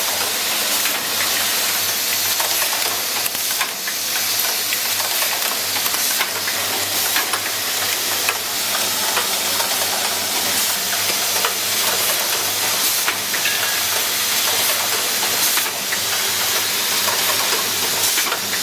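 Keyboard switch automatic assembly machine running: a steady hiss with many light, irregular clicks and a faint low hum underneath.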